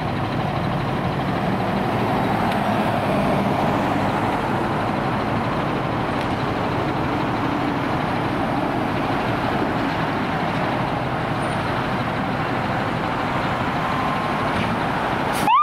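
Fire engine's diesel engine idling steadily. Right at the end a siren starts up, its pitch sweeping upward.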